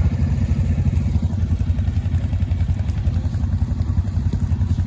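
Utility ATV engine idling steadily: a low, even rumble with no revving.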